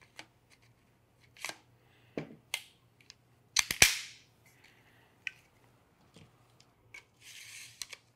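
Peak Design Travel Tripod carbon fibre leg being refitted by hand: a series of sharp plastic-and-metal clicks and snaps as the leg cam is closed and the shroud snapped back on, the loudest a quick cluster of snaps about three and a half seconds in, with a brief sliding rub near the end.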